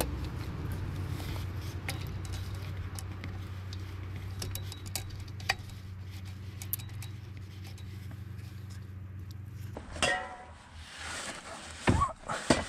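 Light metallic clinks and knocks of hand work on a car's clutch, fitting the clutch disc on the flywheel with a centering tool, over a steady low hum. The hum stops about ten seconds in, and a few louder knocks and scrapes follow.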